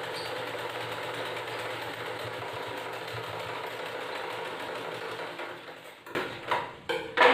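Merritt sewing machine running steadily as it stitches a seam, slowing and stopping after about five seconds. Near the end come three sharp clicks as scissors snip the thread.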